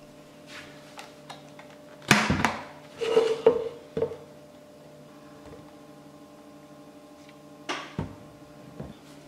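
Plastic blender jar being lifted and handled after blending a shake: a few hollow clunks and knocks about two, three and four seconds in and again near the end, over a faint steady hum.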